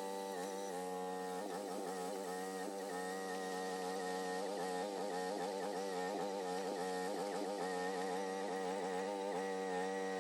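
Groundhog mini excavator's engine running as a steady drone, its pitch wavering slightly through the middle.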